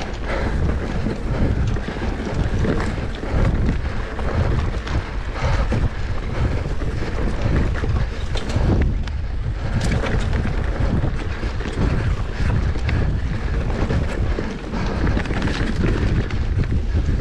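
Heavy wind buffeting the microphone: a loud, gusty rumble that stays strong throughout, with no speech.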